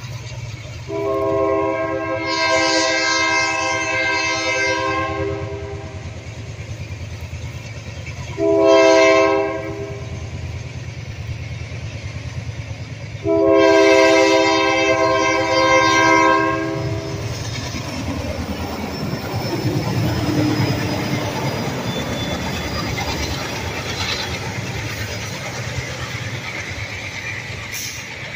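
Diesel freight locomotive's horn sounding for a grade crossing: a long blast, a short one a few seconds later, then another long one, over a steady low rumble. From about two-thirds of the way in, the locomotive and a string of hopper cars roll past close by.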